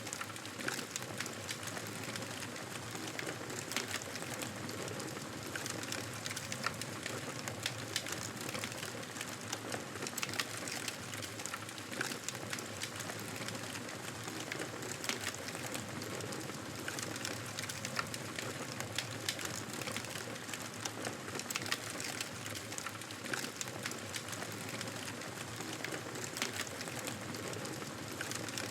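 Wood fire in a fireplace crackling, with irregular sharp pops and snaps over a steady hiss.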